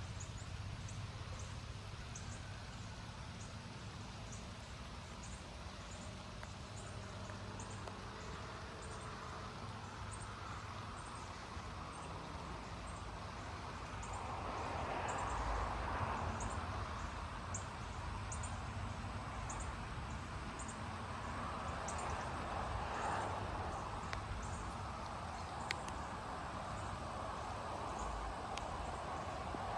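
Outdoor summer ambience: an insect calls in short, high ticks about once a second over a steady low rumble, with broad swells of rushing noise about halfway through and again near the end.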